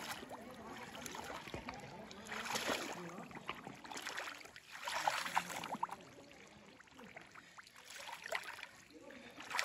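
Footsteps wading through shallow muddy water in rubber waders, the water sloshing and splashing around the legs, with two louder sloshes about two and a half and five seconds in.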